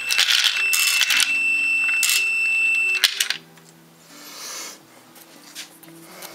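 Homemade bullet collator running: .224 rifle bullets rattling and clinking against each other on its spinning disc, with a steady high whine from its small salvaged Honda headlight motor. The rattle stops suddenly about three seconds in, leaving faint background music.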